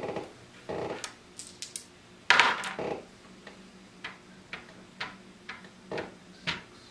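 Monopoly pieces on a board on a wooden table. There are scattered clicks and a louder clatter about two seconds in, then light, sharp taps about twice a second as a token is moved along the squares.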